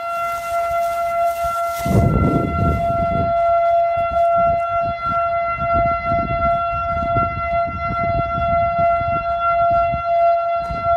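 Outdoor tornado warning siren sounding a steady, held tone, signalling a tornado warning. Low rumbling noise comes and goes under it, strongest about two seconds in.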